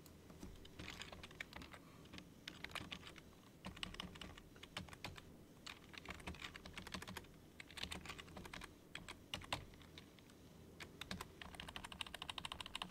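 Typing on a computer keyboard in irregular bursts of faint keystrokes, with a short pause about ten seconds in and a fast run of keys near the end.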